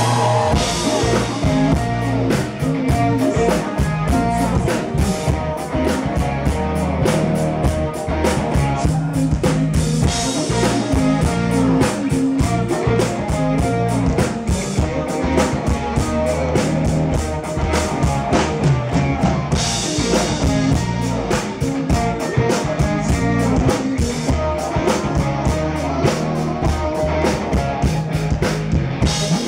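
Live rock band playing, with a drum kit driving a steady beat under guitar and bass.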